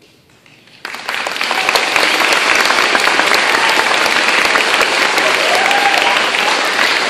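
Audience of children and adults applauding: many hands clapping, starting suddenly about a second in and going on steadily.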